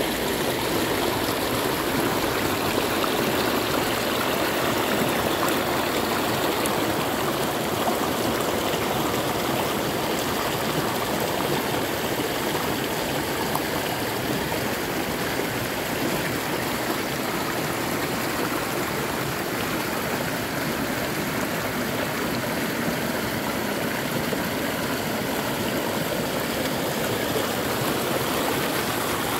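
Rain-swollen creek running fast over rocks and small drops, a steady rush of water.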